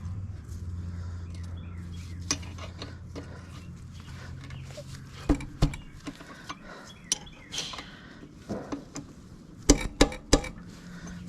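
Hand tools clinking against metal while a bolt on the motorcycle's rear brake caliper is screwed in and tightened with a 12 mm wrench: scattered sharp clicks, with a quick group of three near the end, over a steady low hum.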